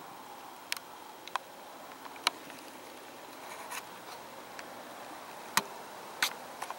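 Several sharp, short clicks and ticks close to the microphone, the loudest a little past two seconds and about five and a half seconds in, over a faint steady outdoor hiss.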